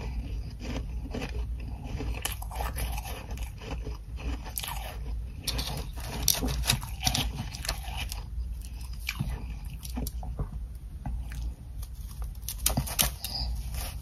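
Close-miked biting and chewing of frost-covered ice chunks: irregular crisp crunches and crackles, with the loudest bites in the middle and near the end.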